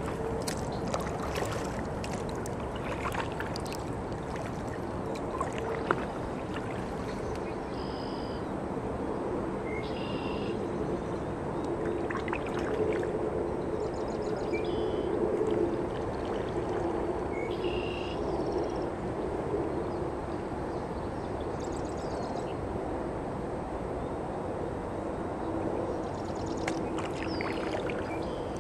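Sea kayak paddling: the paddle blades dip, swish and drip, and water trickles past the hull in a steady wash.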